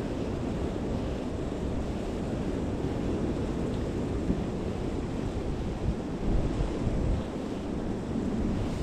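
Wind buffeting the microphone: a steady low rumble that swells in gusts about two thirds of the way through.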